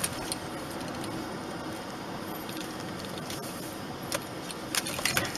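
Steady road and engine noise heard from inside a moving car, with a few short clicks or rattles near the end.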